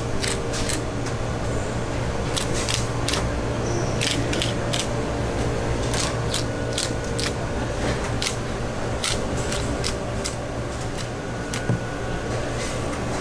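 Long knife scraping and clicking against the rib bones of a giant tuna as the loin is cut away from the frame, in irregular sharp ticks and short scrapes, over a steady low hum.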